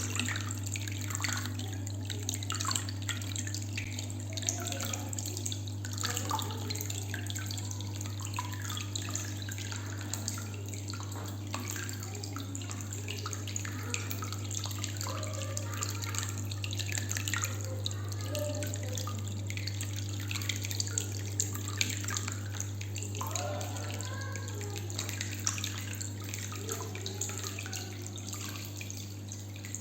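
Small homemade water fountain: water trickling and splashing continuously, with a steady low hum underneath.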